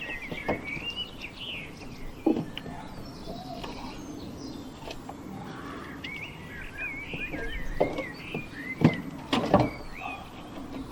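Small birds chirping, with a few separate sharp knocks and clicks in between, the loudest near the end.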